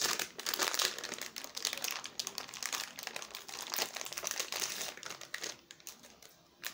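A plastic crisp packet being crinkled and torn open by hand, a dense run of sharp crackles that thins out and stops about six seconds in.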